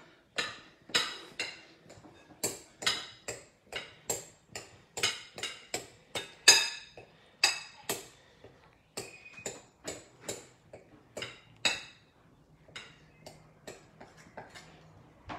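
A table knife tapping and scraping against a glass mixing bowl as cold butter is cut into flour, in irregular clicks of about two or three a second that grow fainter near the end.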